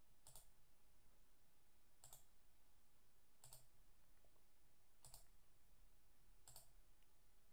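Near silence with faint, sharp computer clicks, five of them evenly spaced about a second and a half apart, as the software's undo is worked through.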